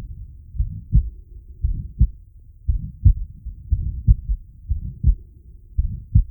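Heart sounds through a digital stethoscope from a patient with aortic stenosis, at about one beat a second. Right after each first heart sound comes a systolic murmur, crescendo or crescendo-decrescendo in shape, before the sharp second sound.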